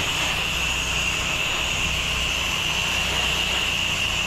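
Pressure washer spray gun shooting a steady hissing water jet, downstreaming a cleaning solution onto siding, over the low steady running of the pressure washer's engine.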